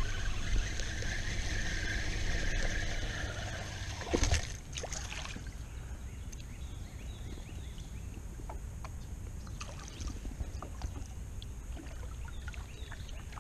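A small hooked bass splashing once at the water's surface about four seconds in. Light water sounds and faint ticks follow as it is skated in across the top.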